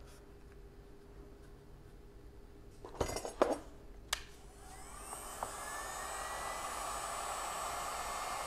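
WEN 2020 heat gun switched on with a few clicks and knocks, its blower fan then spinning up with a rising whine and settling into a steady rush of air on its low setting.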